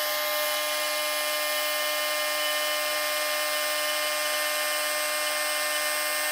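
Bench milling machine's end mill cutting aluminium in a CNC pass, a steady pitched whine with several tones held level.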